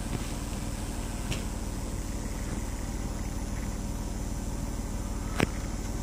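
A steady low mechanical hum with constant low tones, with a sharp click about five and a half seconds in.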